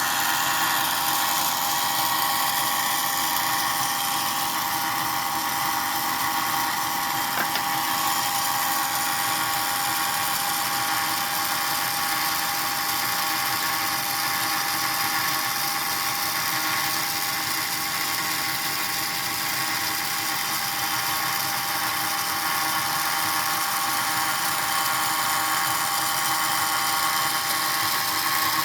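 Small electric motor in a motorized scale-model Allis-Chalmers 7050 tractor running steadily, driving a working scale-model Allis-Chalmers 200 baler; a steady high whine with a single faint click about seven seconds in.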